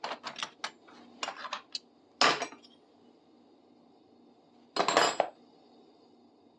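Metal hand tools clinking and clattering as they are sorted and set down: a run of light clinks in the first two seconds, then two louder clanks, one just past two seconds and one about five seconds in.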